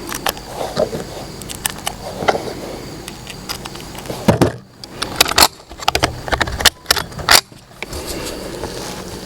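A Ruger 10/22 semi-automatic .22LR rifle fired in a quick string of sharp shots over about three seconds, starting about four seconds in. Before the shots, light metallic clicks and rattles of the rifle being handled.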